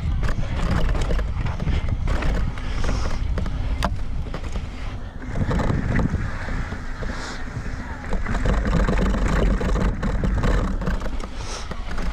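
Mountain bike riding down a rocky dirt trail: tyres rolling and crunching over rock and dirt, with frequent sharp knocks and rattles from the bike over the bumps, and wind rushing across the microphone.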